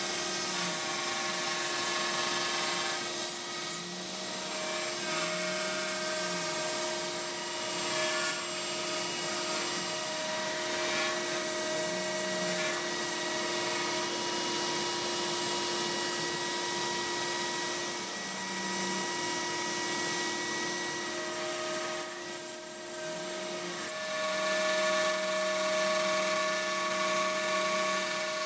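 CNC router spindle whining steadily as its bit clears the background around raised lettering in a cedar board, over the rush of a dust collector. The pitch of the whine shifts every few seconds, and a lower hum comes and goes in short spells as the machine moves.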